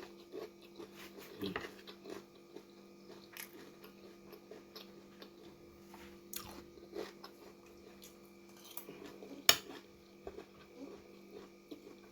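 Quiet eating sounds: scattered soft chewing and crunching with small clicks, and one sharper click late on, over a faint steady hum.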